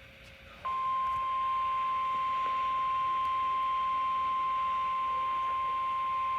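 National Weather Service 1050 Hz warning alarm tone: one steady, unwavering high tone that switches on abruptly just under a second in and holds unchanged. It is the alert signal that a weather warning broadcast is about to follow.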